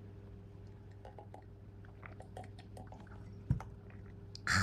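A woman's faint wet mouth clicks, then a sudden short hiccup about three and a half seconds in and a brief breathy sound near the end: her hiccups have not stopped.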